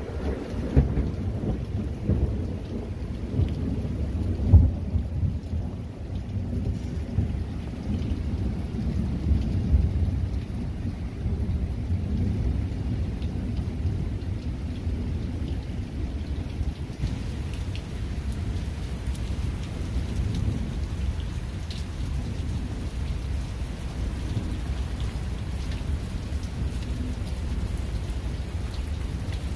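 Thunderstorm: steady heavy rain with thunder rumbling through it. The rumble is strongest in the first dozen seconds, with a sharp peak about four seconds in, then eases into a more even rain sound.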